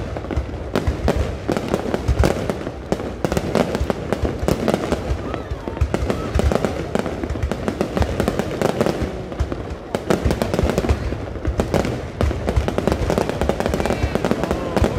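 Fireworks display going off continuously: rapid, overlapping bangs and crackles with no break.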